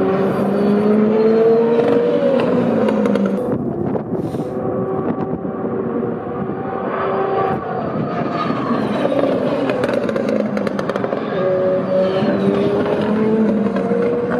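Super Formula race cars' turbocharged 2.0-litre four-cylinder engines running on track. The engine note rises in pitch over the first couple of seconds and again near the end.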